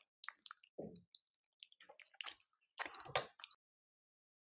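Close-miked wet eating sounds of chicken curry and rice: a run of short mouth clicks and squelches that stops about a second before the end.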